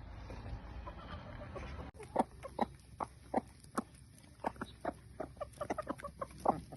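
A low steady rumble for about two seconds, then it cuts off and chickens cluck in a quick run of short calls.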